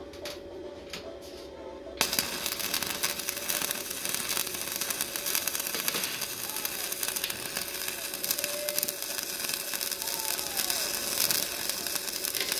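Stick-welding arc from a Kerher Pro 200 inverter welder on steel rebar: the arc strikes suddenly about two seconds in and then crackles steadily as the electrode burns and the bead is laid.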